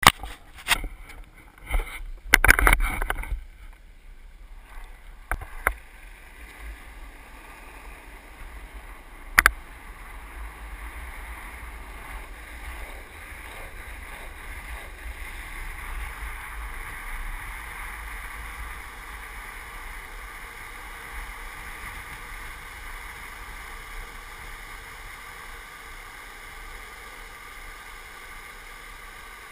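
Wind rushing over the microphone and longboard wheels rolling on asphalt during a downhill run, a steady rushing noise that grows louder about halfway through and then holds. In the first few seconds there are several loud knocks and thumps, and a single sharp click about nine seconds in.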